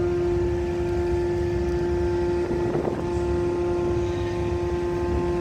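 Ship's engine running with a steady, constant drone and low rumble as the vessel berths, with a brief noise about three seconds in.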